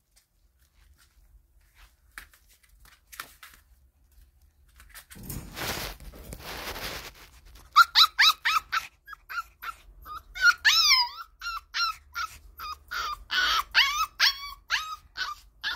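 Siberian husky puppy yipping and whining in a quick series of short, high-pitched cries, some sliding down in pitch. The cries start about halfway through, after a few seconds of scuffling.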